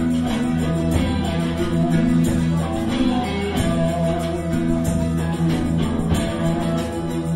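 Live band playing an upbeat pop-rock number: electric bass, electric guitar and a drum kit keeping a steady beat.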